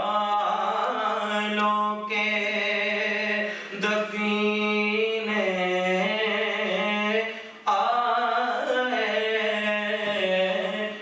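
A man's solo voice chanting a melodic recitation into a podium microphone, holding long wavering notes, with short breath pauses about four and eight seconds in.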